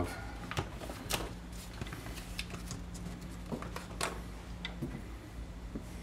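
Light clicks and handling noises, a few scattered taps, from a hand pressing white duct tape into place around the edge of a window air conditioner, over a faint steady low hum.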